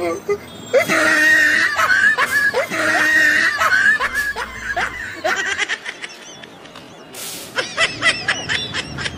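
High-pitched laughter in repeated bursts, giving way near the end to a faster string of short, clipped giggles.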